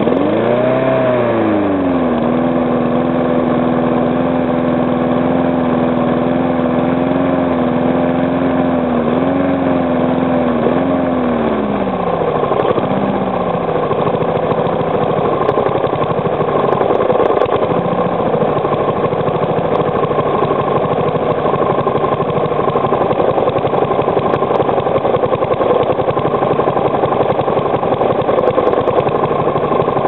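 Briggs & Stratton single-cylinder four-stroke lawnmower engine just after starting: it flares up, settles at a steady fast run, dips twice, then is throttled down about 12 seconds in to a slow, rough near-stall idle. At that low speed it knocks from the back of the crankcase. The owner is unsure of the cause and guesses improper combustion or a worn, loose part.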